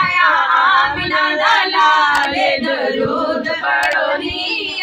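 Several women's voices singing a naat together, the devotional hymn sung at a milad gathering.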